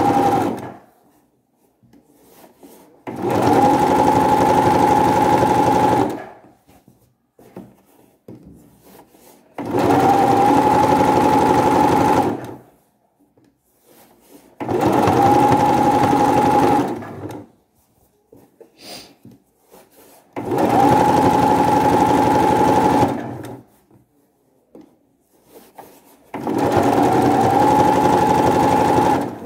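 Domestic electric sewing machine stitching a folded hem in short runs: it starts and stops six times, each run lasting two to three seconds with a steady whine, with quiet gaps of a few seconds between. The first run is already going and stops about a second in.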